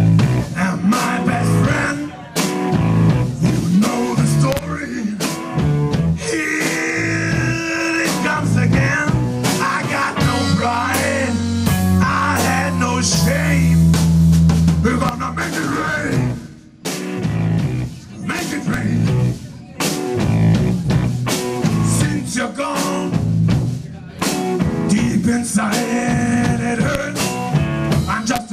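Live rock band playing: electric guitars and drum kit keeping a steady beat, with a lead melody line over them.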